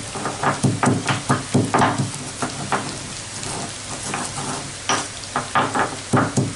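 Stone pestle pounding red chillies coarsely in a stone mortar, about three to four strokes a second. The strokes give way to a softer grinding stretch in the middle, then the pounding resumes near the end.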